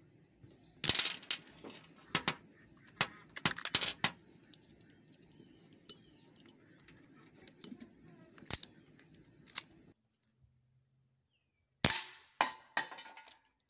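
Small metallic clicks and clacks as the shells of a Crosman SNR357 CO2 BB/pellet revolver are handled and loaded into the gun. Near the end, the revolver fires once with a sharp CO2 pop, followed by two quieter cracks.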